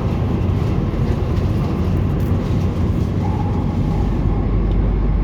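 Subway train running between stations, heard from inside the carriage: a steady rumble of wheels and running gear that deepens into a heavier low rumble about four seconds in.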